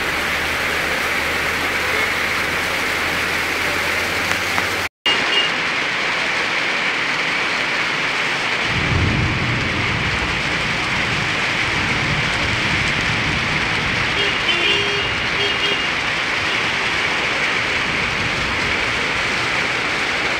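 Heavy rain pouring steadily onto a road and roofs, a dense unbroken hiss. A low rumble joins about nine seconds in and carries on under the rain.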